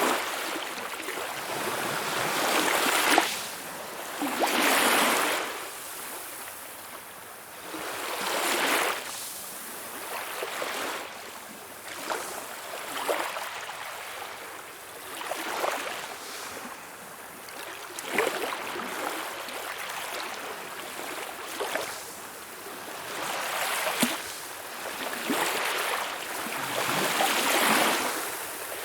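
Small waves splashing and washing in, one surge every two to three seconds, some breaking with a sharp slap.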